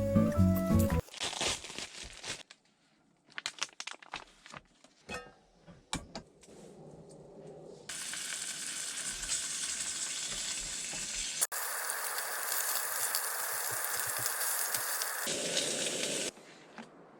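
A few seconds of small clicks and knocks, then a steady sizzling hiss for about eight seconds that stops abruptly, broken once by a sharp click partway through.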